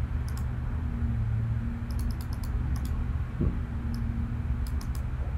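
Computer mouse clicking, a few single clicks and small quick clusters, as a value in the software is clicked and dragged. A steady low electrical hum runs underneath.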